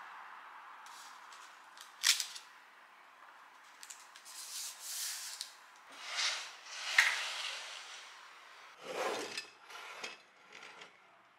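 Hand-handling noises at a wooden easel: a sharp click about two seconds in, rubbing and light knocks on wood, then short clatters as paintbrushes are moved in a ceramic jar near the end.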